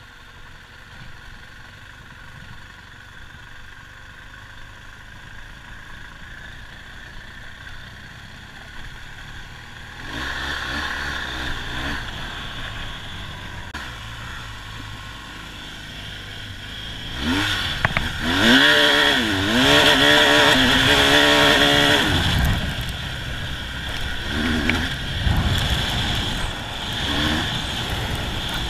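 Adventure motorcycle riding a dirt trail: engine, tyre and wind noise, fairly quiet at first and louder from about a third of the way in. Past the middle, the engine revs rise and fall several times over a few seconds, with knocks from the bike on rough ground.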